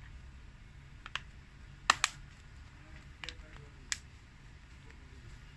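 Several short, sharp plastic clicks, the loudest two close together about two seconds in: the Vivo Y12's back cover snapping onto its clips as it is pressed down by hand.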